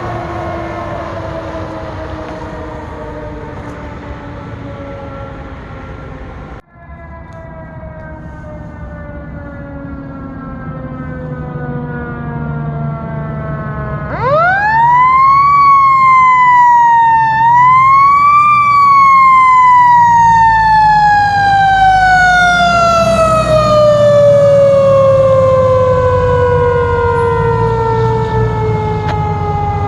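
Fire truck's mechanical siren in a long falling wail as it coasts down, which breaks off abruptly about seven seconds in. About fourteen seconds in it is spun up sharply, dips briefly and climbs again, then winds slowly down over a truck engine's low rumble.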